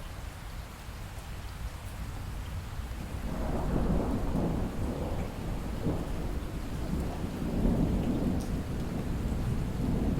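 Steady rain with thunder: a long rolling rumble builds about three seconds in and keeps rolling, swelling again near the end.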